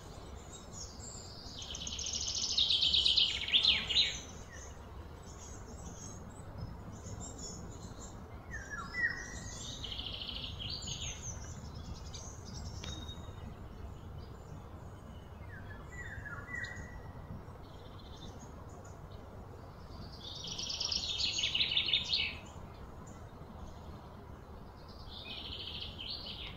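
High-pitched outdoor animal calls: two loud, rapid trilling bursts that swell for about two seconds each, one a couple of seconds in and one about twenty seconds in. A few short falling chirps come in between, over a low steady rumble.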